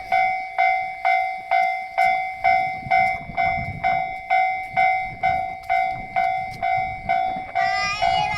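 Railway level-crossing warning bell ringing its repeated "kan-kan" strikes, about two a second, each with a clear ringing tone, over a low rumble.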